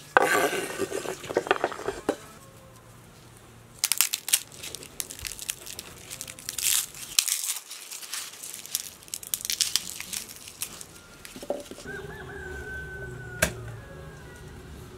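Dry, papery garlic skins crackling and crinkling in bursts as a garlic bulb is broken into cloves and peeled by hand. Near the end a rooster crows once, a steady held call of about a second and a half.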